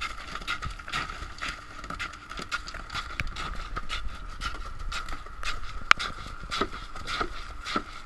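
Irregular knocks and thumps from a landed tuna being worked with a long pole in a fiberglass fish box on a boat deck, over a steady high hum. One knock just before the six-second mark is the sharpest.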